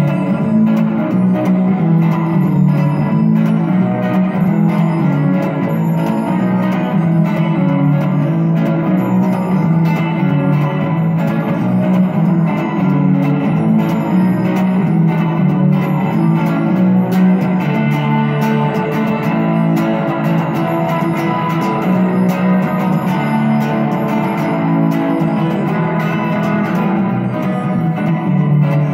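Instrumental music: guitar with heavy echo from a GFI Specular Tempus and saturation from a Strymon Deco, over twinkly background atmosphere from a Roland Fantom X8 keyboard. It plays steadily, with no breaks.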